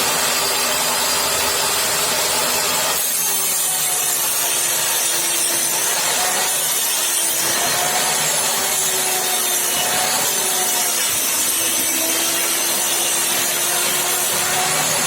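An electric power tool running steadily on wood, its motor tone sagging and recovering a few times as it takes load, over a constant hiss of cutting or sanding.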